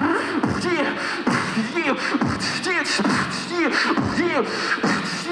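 Beatboxing through a microphone and PA: a steady rhythm of deep bass kicks, fast hi-hat-like hisses and repeated falling vocal swoops.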